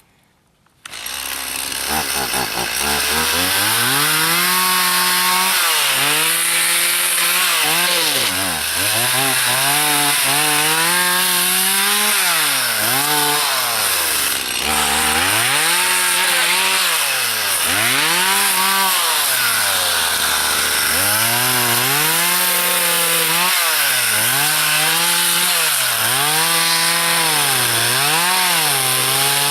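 Chainsaw cutting up a felled tree, starting about a second in, its engine pitch repeatedly dropping and climbing again as it works through the wood.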